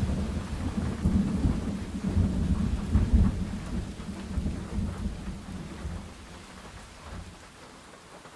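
Rolling thunder: a deep, uneven rumble that swells several times in the first few seconds and then slowly dies away, with a faint hiss of rain underneath.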